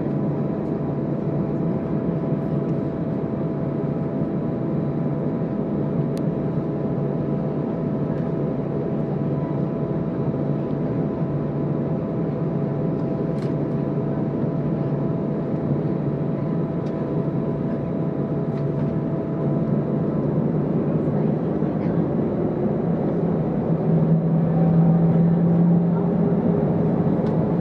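Jet airliner's engines heard from inside the cabin, running steadily with a low hum and thin whining tones. About twenty seconds in the whine starts to climb and the noise grows louder a few seconds later, as the engines spool up for takeoff.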